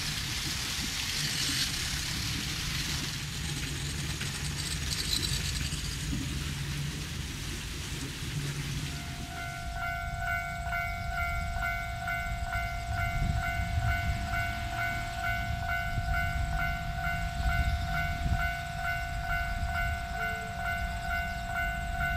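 Running water for the first nine seconds or so. Then a JR 103 series electric commuter train approaches down the line with a growing low rumble, while a steady ringing tone pulses about twice a second.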